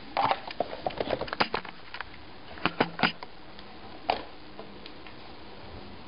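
Handling noise as a camera and laptop are moved and set down: a quick run of clicks and knocks in the first second and a half, then a few sharper knocks about three seconds in and one just after four seconds.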